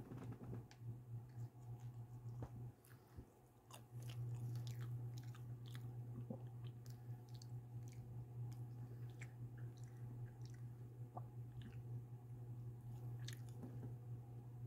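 A person chewing and biting pizza, with many small crisp mouth clicks, over a steady low hum that grows louder about four seconds in.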